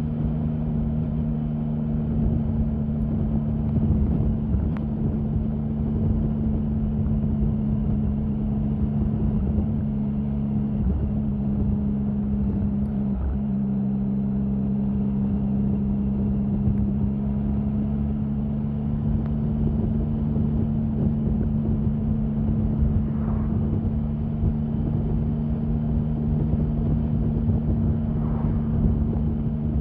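Triumph Sprint 1050's three-cylinder engine running at a steady engine speed, its pitch holding nearly level with a few brief dips, the clearest about 13 seconds in.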